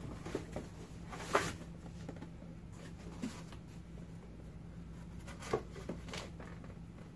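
Cardboard boxes and packaging being handled and opened: scattered rustles and scrapes of cardboard, the loudest about a second and a half in, over a low steady hum.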